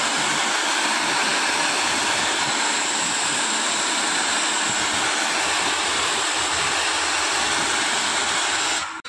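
A 300-bar high-pressure washer jet spraying hard, a loud steady hiss of water that cuts off suddenly near the end.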